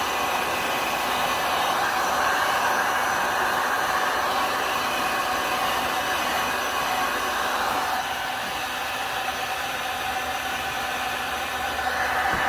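A hot-air heat tool blows steadily over an alcohol-ink tumbler to set the ink, making an even rushing noise. It eases a little about two-thirds of the way through and comes back up near the end.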